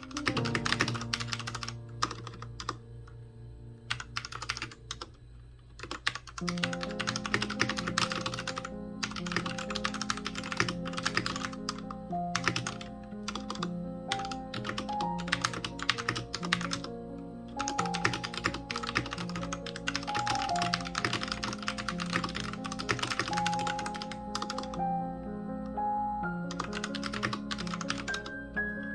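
Typing on an RK Royal Kludge RK61 mechanical keyboard: a fast, irregular run of key clicks, with a short lull about two-thirds of the way through.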